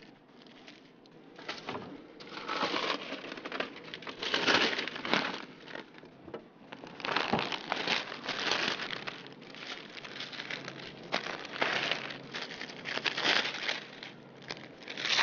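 Plastic packaging of frozen parathas crinkling as it is handled, in irregular bursts of rustling.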